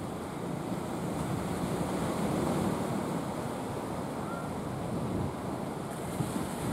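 Sea surf washing steadily with wind buffeting the microphone, swelling slightly a couple of seconds in.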